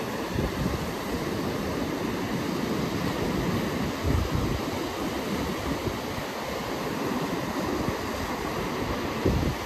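North Sea surf breaking and washing in steadily, with wind buffeting the microphone; stronger gusts thump low about four seconds in and near the end.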